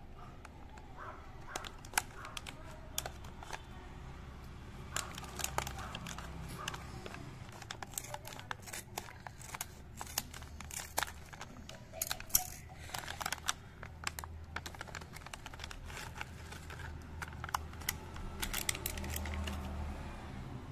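Plastic sweet pouch crinkling and crackling in the hands, with irregular sharp crackles, as it is cut open with scissors.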